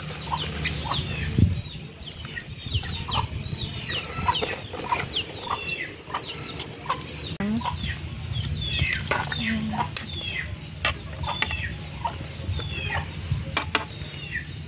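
Chickens calling, a steady string of short, high, falling peeps and clucks repeating over and over, with a few sharp clicks among them.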